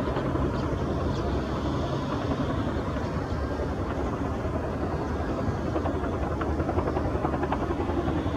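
Steady low engine rumble of airport apron machinery and aircraft, with a few faint light knocks over it.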